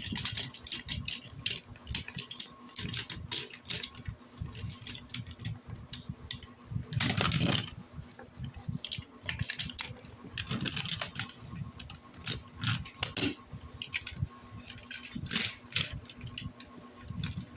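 Hard plastic Tobot toy robots being handled and moved on a table: irregular clicks, knocks and rattles of plastic parts, with a longer rustling scrape about seven seconds in.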